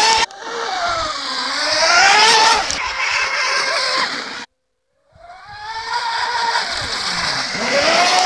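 Twin Leopard 3660 brushless motors (2770 Kv, on 4S) of a Dragon Hobby Mini Cat 820 EP RC catamaran whining at high speed over the hiss of spray, the pitch rising and falling as the boat runs past and the throttle changes. The sound breaks off for about half a second midway, then returns.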